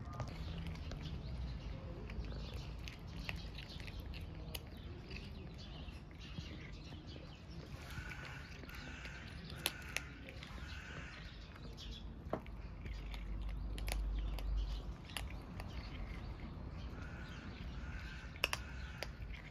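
Kittens eating dry cat food, with scattered sharp crunches of kibble. Short bird calls repeat in the background over a low steady rumble.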